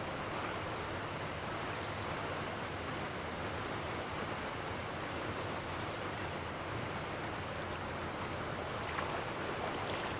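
Small ocean waves lapping and washing in shallow surf, a steady wash of water, with a brief click near the end.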